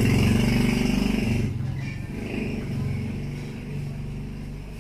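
A vehicle engine running steadily nearby, loud for the first second and a half, then dropping to a quieter, lower level.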